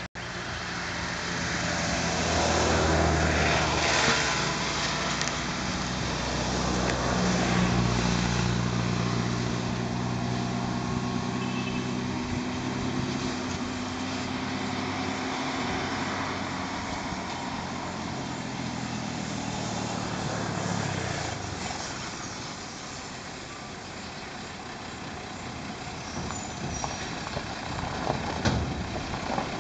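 A motor vehicle's engine running with a steady low drone that swells and then fades away about two-thirds of the way through. A few sharp clicks or snaps come near the end.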